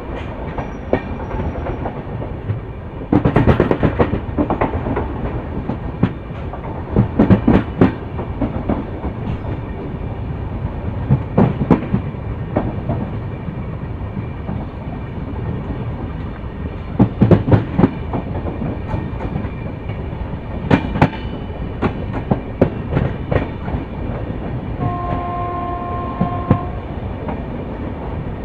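LHB coaches of an Indian Railways express rolling along the track, a steady rumble broken by several bursts of rapid clickety-clack as the wheels cross rail joints. A short steady tone sounds for about a second and a half near the end.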